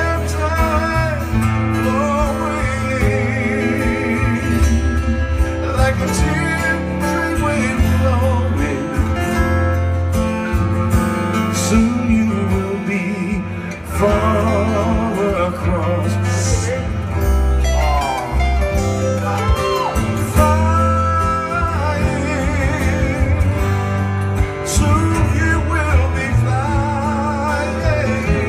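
Live acoustic band: guitars strummed and picked under a man singing lead, with a steady low bass line.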